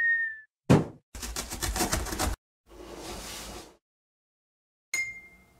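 Cartoon sound effects for an animated intro: a short falling whistle at the start, a sharp thump, then about a second of rapid rattling, a softer whoosh, and a bright ding near the end that rings and fades.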